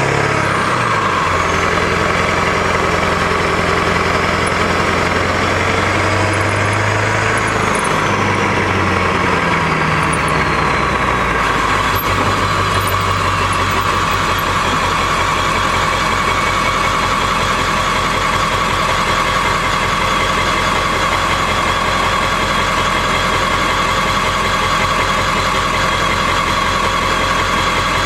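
Ford F-250's Powerstroke V8 turbodiesel heard from under the truck: the engine pitch rises and falls as the truck pulls away lightly and slows, with a high whine falling in pitch. About eleven seconds in it settles to a steady, rapidly pulsing diesel idle.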